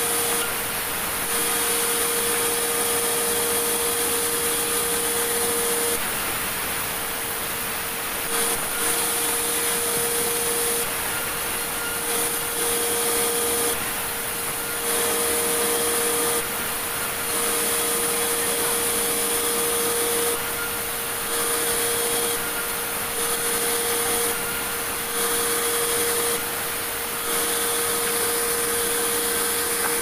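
Band sawmill running and sawing boards from a large log, with a steady whine that comes and goes every one to two seconds.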